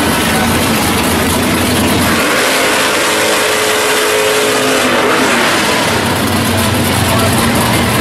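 Loud engine of a 1968 Pontiac GTO drag car running at the starting line. Its note rises about two seconds in and is held for about three seconds before dropping back to a rough idle.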